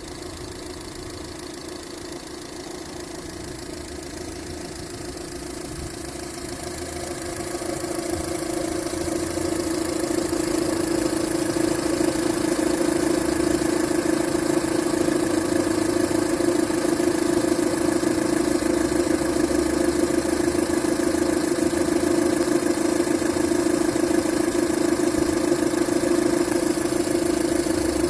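A motor or engine running steadily with an even hum. It grows louder over the first ten seconds or so, then holds level.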